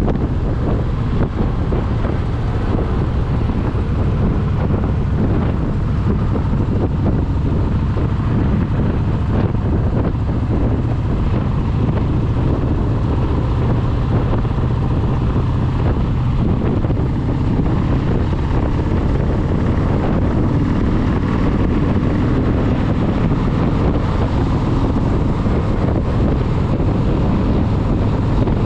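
Cruiser motorcycle engine running steadily while riding at road speed, with wind buffeting the handlebar-mounted microphone.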